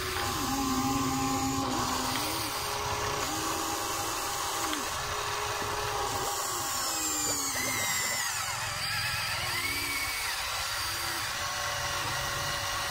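Huina radio-controlled toy excavator's electric motors whining as it swings and works its boom and bucket. The whine jumps between a few pitches, changing about every second as different movements start and stop.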